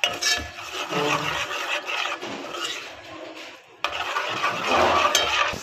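Metal ladle stirring and scraping a thick yogurt masala around a metal cooking pot, an irregular wet scraping that breaks off briefly a little before four seconds in.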